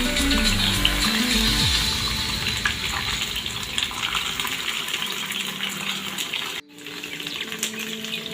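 Potato chips deep-frying in hot oil: a steady sizzle scattered with small crackles and pops. Background music with bass notes plays over the first two seconds, and the sound drops out briefly about two-thirds of the way through.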